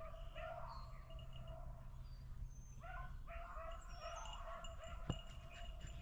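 Beagles baying on a rabbit's trail, faint and far off: a run of drawn-out, repeated hound calls that break and start again.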